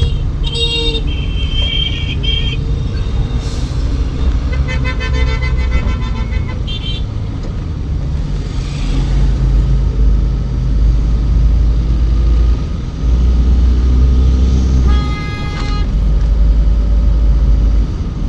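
Danfo minibus engine rumbling low and steady in slow-moving traffic, getting heavier in the second half, while car horns honk several times: a couple near the start, a longer pulsing honk in the middle, a short toot after it and another honk near the end.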